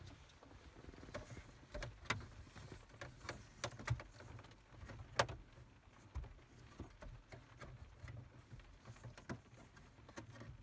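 Faint, irregular clicks and knocks of hands handling cables and plastic dashboard trim, pushing them into the dash, with the sharpest click about five seconds in.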